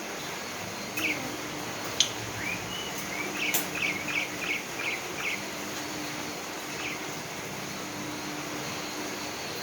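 Asian pied starling calling: a few chirps, then a quick run of about six short notes midway, over a steady hiss of heavy rain. A couple of sharp clicks come early, the loudest at about two seconds in.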